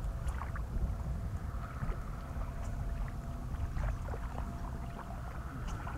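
Wind rumbling and buffeting on the microphone, with a few faint light ticks above it.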